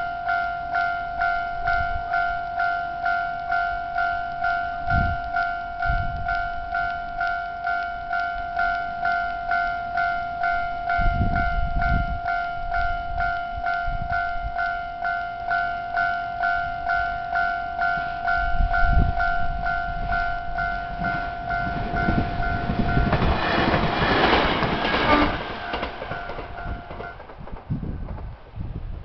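Japanese railway level crossing alarm ringing in rapid, even repeated strokes. About 23 seconds in a train passes through the crossing with loud rushing and wheel noise, and the alarm stops shortly after.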